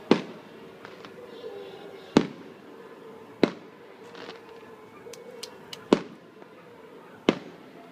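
Aerial fireworks exploding: five sharp bangs spread over several seconds, each trailing off briefly, with a few fainter crackles between them around the middle.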